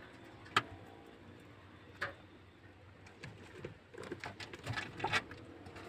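Rabbits drinking from a plastic water tub: two sharp clicks, then about a second in from the middle a quick run of small ticks as one laps at the water.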